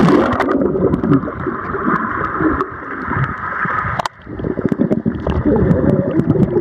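Camera plunging into pool water with a splash, then muffled underwater rushing and gurgling with many small clicks. After a brief lull about four seconds in, the bubbling picks up again as a swimmer breathes out through her nose underwater.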